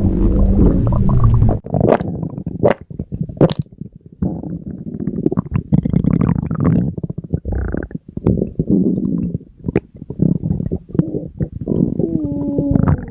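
Human stomach growling and gurgling: irregular low rumbles broken by short sharp pops, with a squeaky gurgle wavering in pitch near the end. A denser, hissier rumble cuts off abruptly about one and a half seconds in.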